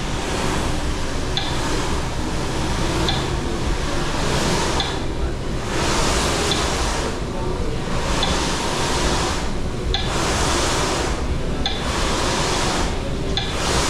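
Metronome sounding a short high beep about every 1.7 seconds over the steady rumble of an indoor snowboard treadmill's moving carpet slope. A snowboard's edge hisses across the carpet, swelling and fading with each turn.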